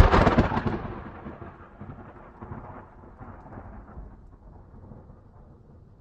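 A loud thunderclap that peaks at the start, then a rumble that slowly dies away over several seconds.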